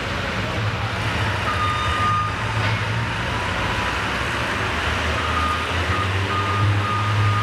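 Oliver 77 tractor engine idling steadily, with a reversing alarm's high beeps sounding on and off over it.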